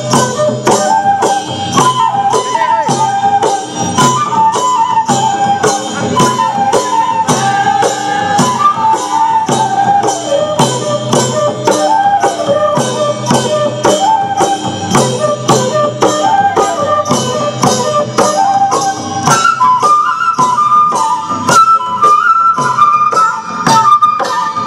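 Bodo folk dance music: a flute melody over a steady percussion beat. About three-quarters of the way through, the flute moves up to a higher phrase.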